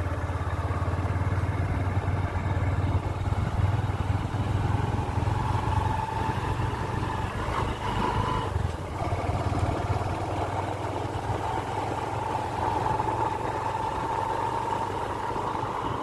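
A motor vehicle's engine running steadily while travelling along a road, with a low even throb and a faint steady whine above it.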